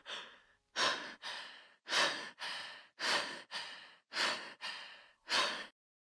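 A person breathing heavily in and out, about ten short breaths in loud-then-softer pairs roughly once a second, stopping just before the end.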